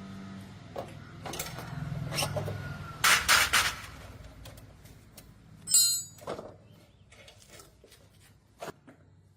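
Workshop handling noises: scattered knocks and scrapes, a loud clatter about three seconds in, and a short metallic ring about six seconds in, as of metal parts or tools being set down.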